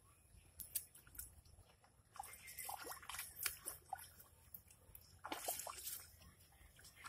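CRIJAF nail weeder's iron nail assembly being dragged through muddy standing water in a rice field, giving faint sloshing and splashing in a few uneven strokes.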